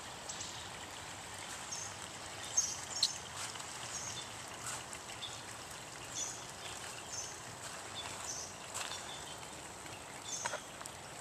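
Light rain falling on a garden pond: scattered drops plinking into the water over a steady soft hiss, with a couple of louder plinks about two and a half and three seconds in.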